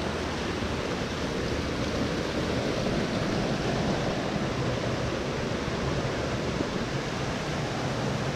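Rushing water of a rocky stream, a steady even rush.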